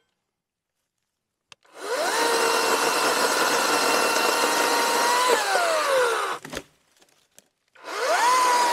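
Harbor Freight Atlas 80V brushless cordless chainsaw: the electric motor spins up with a rising whine, runs at a steady pitch while the chain cuts through a limb, then winds down with a falling whine and stops. A single clack follows, and near the end the motor spins up again for the next cut.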